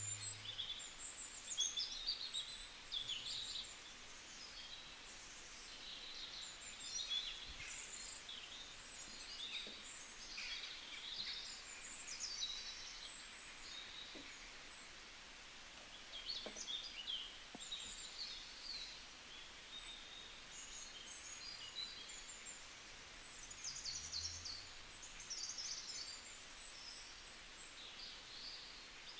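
Several small birds chirping and twittering in short, overlapping calls, over a faint background hiss.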